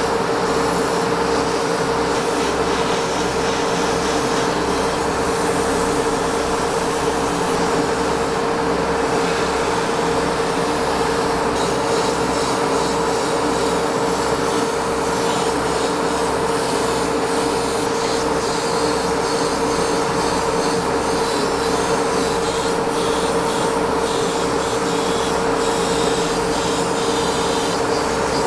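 Steady motor hum with a low throb pulsing about twice a second, under the hiss of an airbrush spraying paint, the hiss growing busier about halfway through.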